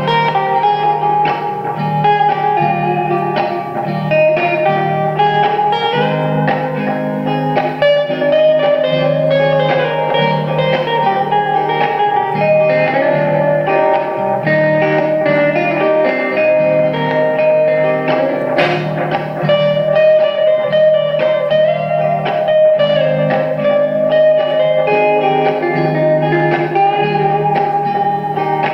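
Instrumental guitar break: a lead guitar melody with gliding, bent notes played over steady rhythm chords, with no singing.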